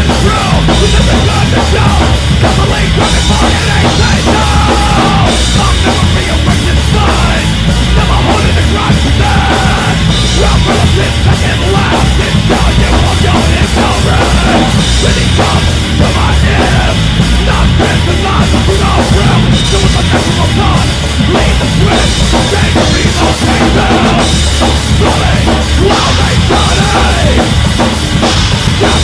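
Recorded loud heavy rock song: a full band with a busy drum kit, playing at a steady, high level without a break.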